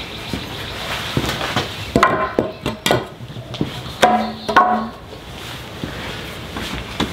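Wooden boards, rip-cut strips of 2x10 lumber, knocking together and dropped onto a concrete floor: a quick run of sharp wooden knocks about two seconds in, then a board clattering down and ringing briefly about four seconds in.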